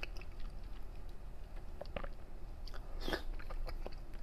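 Close-miked mouth sounds of someone eating chilled yellow peach fruit jelly: soft wet chewing and smacking with scattered short clicks, the loudest about three seconds in.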